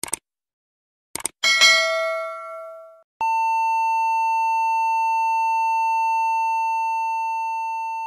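Subscribe-button sound effects: a mouse click, a quick double click about a second in, then a bell ding that rings out for about a second and a half. About three seconds in, a steady test-tone beep starts with the colour bars and holds, slowly fading near the end.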